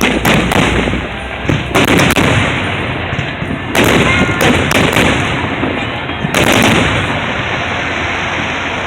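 Aerial fireworks bursting in a series of loud bangs, one every second or two, each trailing off in a rumbling echo.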